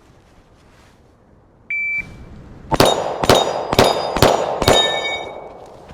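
A shot timer's beep, then five rapid 9mm shots from a Glock 43X pistol about half a second apart, with steel target plates ringing from the hits.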